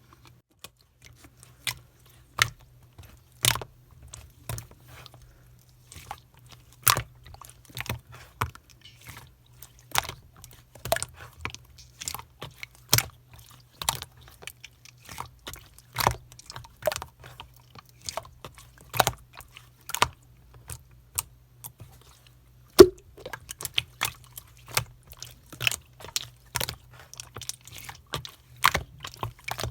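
Clear slime pressed, poked and stretched by hand, giving sharp clicks and pops about one or two a second, with a faint steady low hum underneath. The loudest pop comes about three-quarters of the way through.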